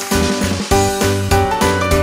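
Background music: an instrumental tune with a bass line and a regular beat.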